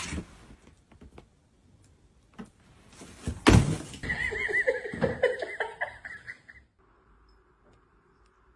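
A sharp thump about three and a half seconds in, then a loud, wavering, trembling animal call lasting a couple of seconds that breaks off suddenly.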